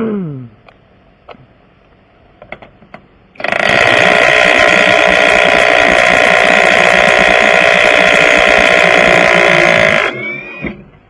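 Impact wrench running hard and steadily for about six seconds, very loud, then stopping and winding down. Just before it, a short word is spoken.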